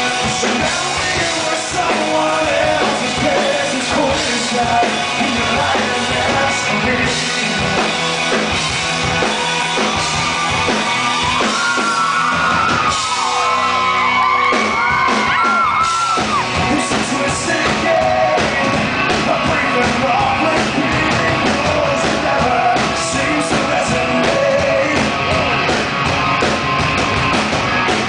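Live rock band playing loudly with a man singing lead. About twelve seconds in, a run of high, bending notes stands out for a few seconds.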